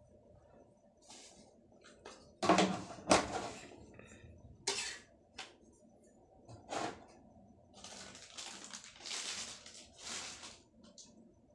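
Kitchen utensils being handled: scattered sharp knocks and clatters, the loudest a pair of knocks a few seconds in, then a spell of rustling clatter near the end.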